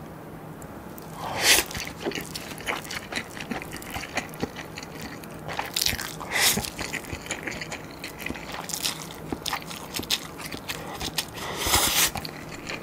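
Close-miked eating of cheese-covered instant ramyeon noodles: wet chewing and mouth clicks throughout, broken by a few louder slurps of noodles, the loudest about a second and a half in and near the end.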